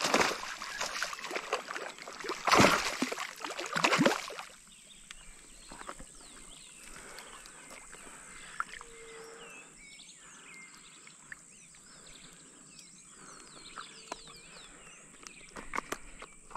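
Hooked traíra thrashing at the surface of shallow, weedy water: several loud splashes over the first four seconds, then quieter small splashes and stem rustling as the fish is pulled through the vegetation.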